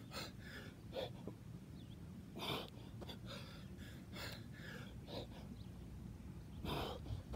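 A man breathing hard and gasping, winded from repeated sprints and burpees, with a breath every half second to a second. The loudest breaths come about two and a half seconds in and near the end.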